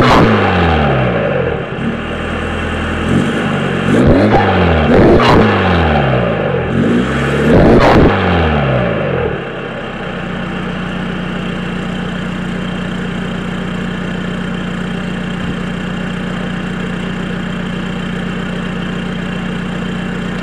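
SEAT Leon TDI 110's 1.9-litre four-cylinder turbodiesel through a free-flowing exhaust, blipped up in revs and let fall back three times, then settling to a steady idle from about ten seconds in.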